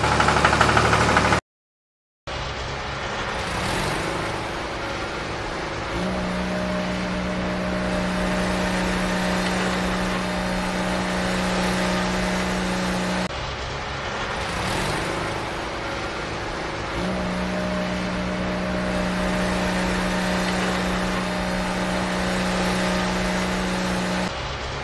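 Heavy-machine engine sound running steadily, with a low droning hum that drops out for a few seconds and comes back in a repeating pattern. The sound cuts out completely for a moment about a second and a half in.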